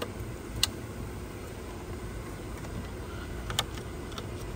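Two sharp plastic clicks about three seconds apart, push-pin clips being snapped into place on a plastic dash bezel, over a steady low hum.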